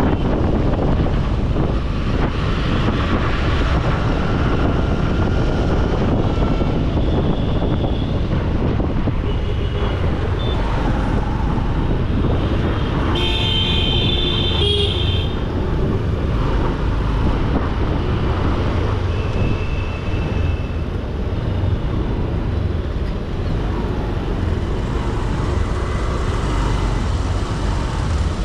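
Road traffic noise heard from within moving traffic: a steady low rumble of engines, tyres and wind. A vehicle horn honks for about two seconds near the middle, with a few fainter, shorter horn toots before and after.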